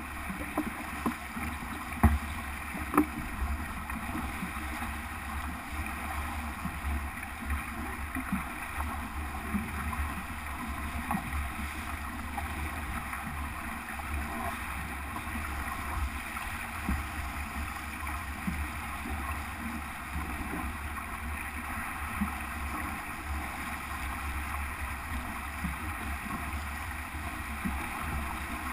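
Sailboat under sail close-hauled: water rushing along the hull and steady wind buffeting the microphone, with a few sharp knocks about two and three seconds in.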